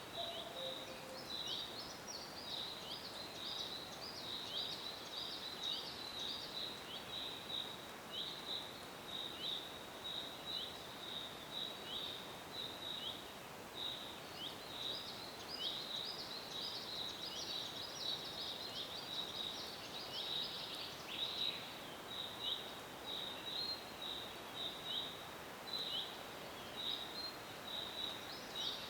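Forest birdsong: small birds chirping continuously in quick, high notes over a soft steady hiss. At the very start, a cuckoo's two-note call ends on its lower note.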